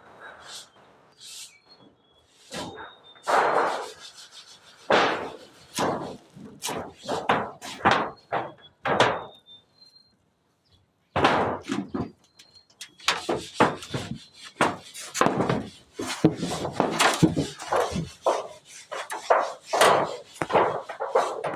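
Irregular wooden knocks and thuds from carpentry work on timber. They pause for about a second midway, then come faster and closer together.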